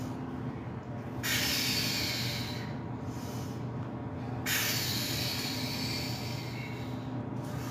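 A weightlifter's forceful hissing breaths, exhaled twice (one about a second in, a longer one midway), as he presses a heavy barbell on the flat bench. A steady low hum runs underneath.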